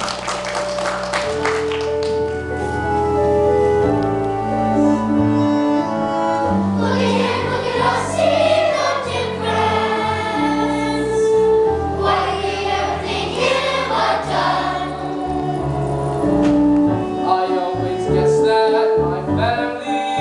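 Music: sustained held chords with a choir singing over them, the voices swelling in a few times.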